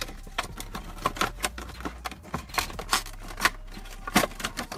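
Clear plastic toy packaging crackling and clicking under the hands as the box is opened and the plastic tray holding the figure is slid out. An uneven run of sharp crackles, the loudest a little past four seconds in.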